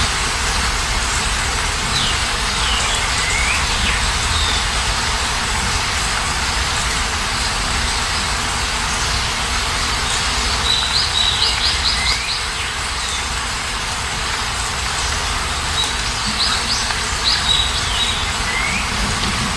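Steady rain hiss with birds chirping over it: a few short chirps in the first few seconds, a quick run of repeated notes about halfway through, and more chirps near the end.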